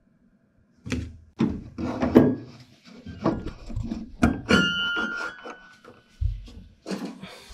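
A metal string height gauge knocking, clicking and scraping against the wooden key bed of a grand piano as it is set up under a treble string, with a brief high ringing tone a little past halfway and a low thud near the end.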